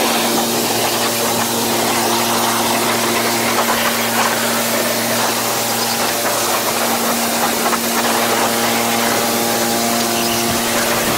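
Pressure washer blasting a high-pressure jet of water against truck wheels and undercarriage: a steady, loud hiss of spray over the even drone of the machine's pump running.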